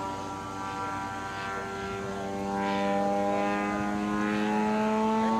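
Radio-controlled model airplane in flight overhead: its engine and propeller run steadily, the pitch creeping gradually higher and the sound growing louder about halfway through.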